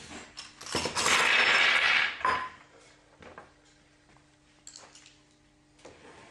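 Metal screws and threaded inserts tipped out of a small brass cup, clattering onto a wooden table top for about a second and a half, then a few light clinks as they are picked through.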